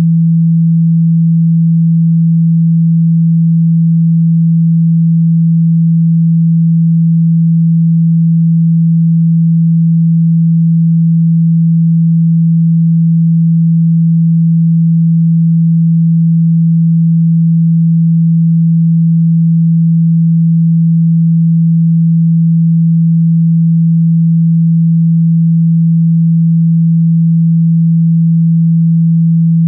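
A steady 165 Hz pure sine-wave test tone: a single low, unwavering pitch held at constant loudness.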